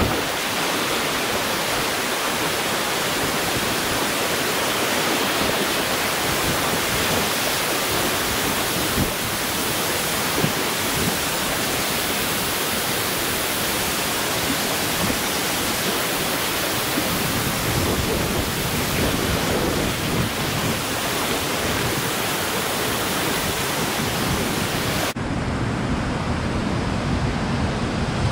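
Whitewater rushing steadily around a kayak running rapids in a rock canyon. About 25 seconds in it switches abruptly to a deeper, steady rush of the river pouring over a rock ledge.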